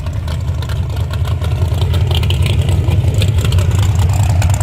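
Car engine running with a deep, steady rumble, with light rattling clicks over it.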